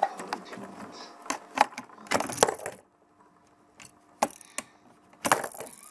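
Hollow plastic toy balls knocking and clattering through a Fisher-Price play house's plastic ball chute and into its tray. A run of sharp knocks comes first, then a denser clatter about two seconds in. After a short quiet there are a couple of single knocks and another brief clatter near the end.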